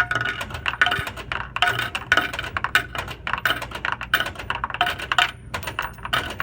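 Vending machine refunding coins: a rapid run of metallic clinks as quarters drop one after another into the coin return, several a second.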